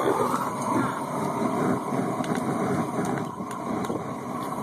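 Homemade rocket stove burning with a steady rushing noise of air and fire drawn through it, with a few faint crackles.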